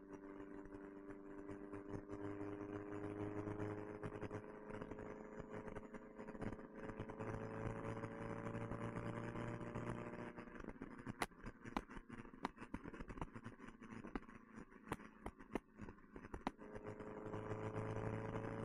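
1969 Alfa Romeo Spider's twin-cam four-cylinder engine through an Alfaholics exhaust, heard from the open car on the move. The engine note climbs steadily as it pulls, then drops away for several seconds off the throttle with a run of sharp ticks. It starts climbing again near the end.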